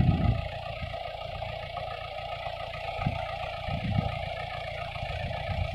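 Motor vehicle engine running steadily, with a few low thumps, the strongest at the start.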